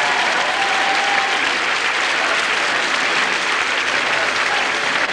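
Crowd applauding steadily, a dense, even clatter of many hands.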